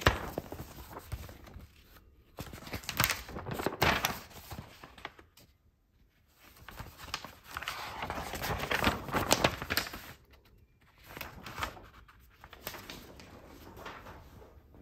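Paper rustling and handling noise in irregular bursts as a softcover sheet-music book is leafed through close to the microphone; no piano is playing yet.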